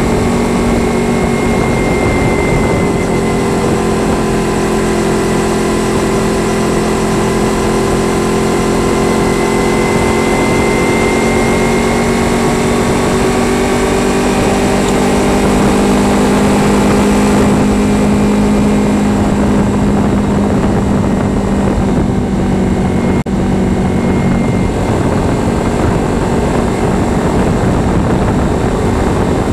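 Kawasaki Ninja 300's parallel-twin engine running at a steady cruise, its note drifting slowly up and down with small changes in throttle, over a constant rush of wind and road noise.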